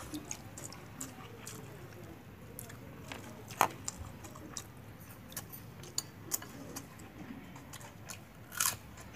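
A person eating by hand: scattered soft clicks and smacks of chewing, with one sharper click about three and a half seconds in and a brief noisy burst near the end.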